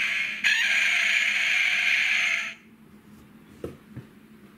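Tomica talking Lightning McQueen toy car's built-in speaker playing its sound clip after its bonnet is pressed, with a short break about half a second in, then cutting off abruptly about two and a half seconds in. A couple of faint taps follow.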